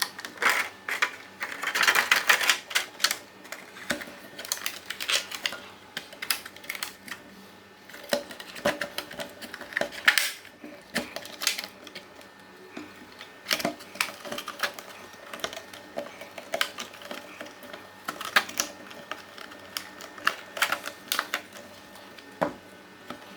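Irregular clicking and clattering of small hard parts and tools being handled on a workbench, bursts of clicks separated by quieter gaps.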